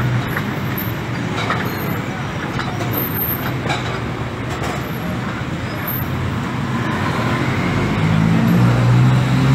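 City street traffic: a steady hum of passing road traffic, with a vehicle engine rumbling louder near the end.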